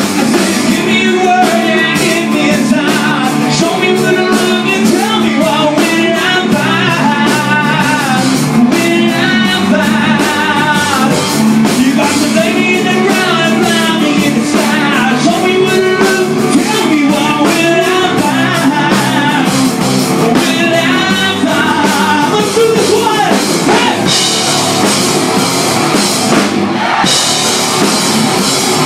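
Live rock band played loud: a lead singer over electric guitar, bass and drum kit. About three-quarters of the way through, the vocals drop out and the band plays on with crashing cymbals.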